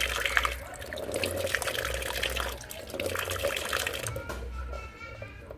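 Water running from an outside tap and splashing as a pipe joint is rinsed off, dying down about four seconds in.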